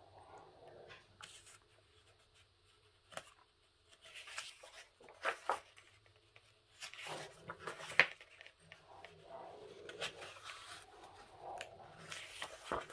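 Pages of a paperback coloring book being turned and handled: paper rustles and flaps with a few sharp page snaps, the sharpest about eight seconds in.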